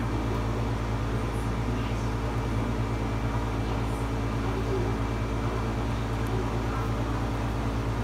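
Steady low machine hum, even in level, with a few faint steady tones in it.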